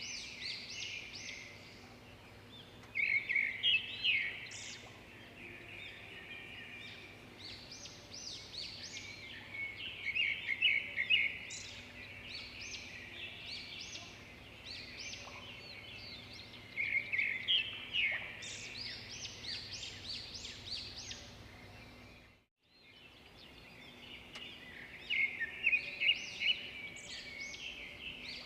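Songbirds chirping and trilling in repeated bouts over a faint steady background. The sound drops out to silence for about half a second around 22 seconds in.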